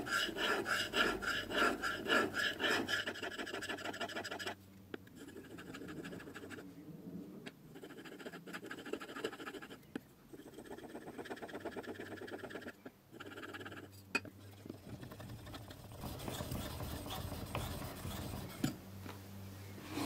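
Steel plane iron scraped back and forth on a wet sharpening stone: quick, even strokes about two or three a second at first, then quieter scraping in stretches with short pauses.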